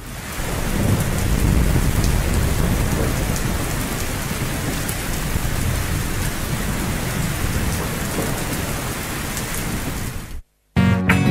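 Recorded rainstorm sound effect: steady heavy rain with a low rumble of thunder. It cuts off suddenly near the end, and after a moment's silence guitar music starts.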